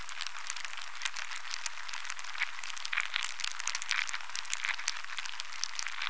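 Dense, steady crackling made of many tiny clicks, thin and high with no low end.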